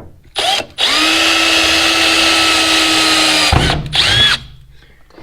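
Power drill running in short trigger pulls: a brief blip, then a steady whine for about three seconds that rises as the motor spins up and stops sharply, then another brief blip. It is being used to fix a switch-panel mounting bracket with small screws.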